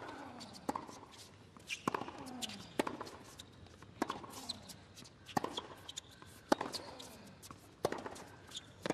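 Tennis ball struck back and forth by rackets in a baseline rally on a hard court, a sharp pop about once a second, with faint squeaks between hits.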